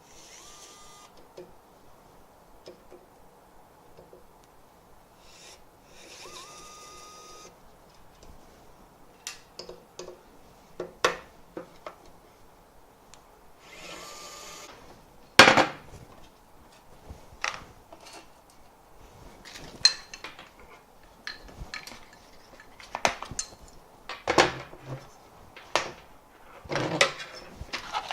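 ES121 electric screwdriver's small motor whirring in three short runs, each with a whine that rises as it spins up, as screws are driven out. Between and after the runs come many sharp clicks and knocks of plastic parts and screws being handled, the loudest a knock about halfway through.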